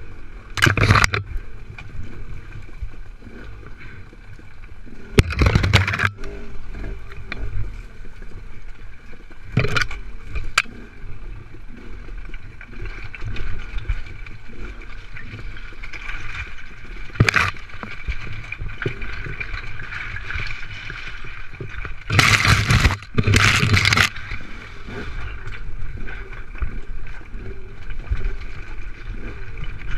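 Dirt bike engine running at low, steady speed while riding over rough rock, heard from a helmet-mounted camera. Several short loud bursts of noise cut across it, the biggest a double burst about three-quarters of the way through.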